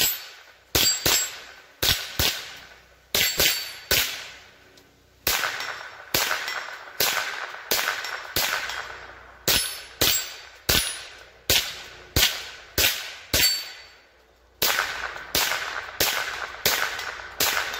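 Semi-automatic .22 LR rifle firing a long string of shots, about two a second, with two short pauses. It is feeding and cycling each round from an aftermarket 25-round magazine without a stoppage.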